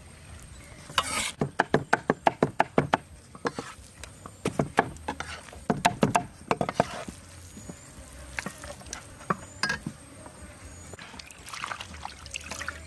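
Quick runs of sharp knocks and clicks, about five or six a second, in two main bursts, then a few scattered clicks.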